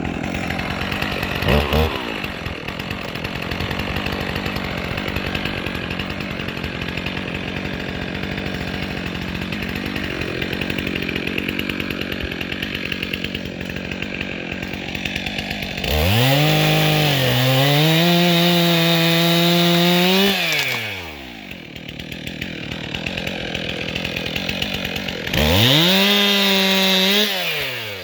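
Stihl MS 362 C two-stroke chainsaw idling, then opened up to full throttle twice to cut limbs: once for about four seconds, a little over halfway through, and again for about two seconds near the end. The pitch dips as the chain bites, then settles.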